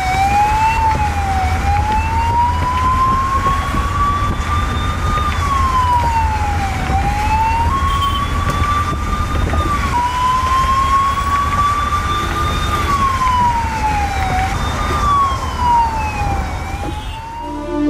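Emergency vehicle siren wailing, its pitch sweeping slowly up and down over and over, with the low rumble of a vehicle engine and road noise underneath.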